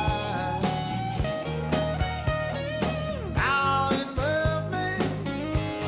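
Blues-rock song with an electric guitar playing lead lines full of bent notes over bass and a steady drum beat.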